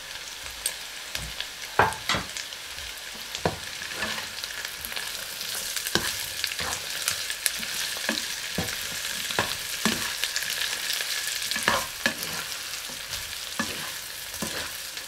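Chorizo, roast pork and vegetables stir-frying in a stone-coated nonstick pan: a steady sizzle, with the spatula scraping and knocking against the pan at irregular intervals as the food is tossed.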